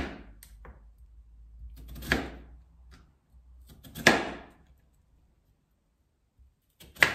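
A large kitchen knife chopping raw potatoes against a cutting board: four heavy chops, about two seconds apart, the last coming after a longer pause.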